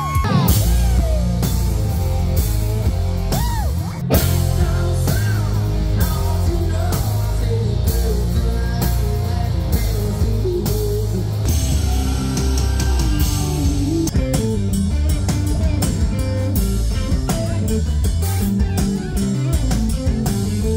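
Rock music with a steady drum beat and guitar.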